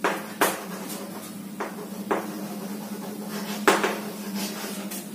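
Chalk writing on a chalkboard: a few sharp taps and short scratches as the letters are written, over a steady low hum.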